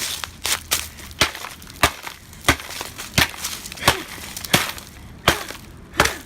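Something being smashed with repeated hard blows: about ten sharp strikes at a steady pace, roughly one and a half a second.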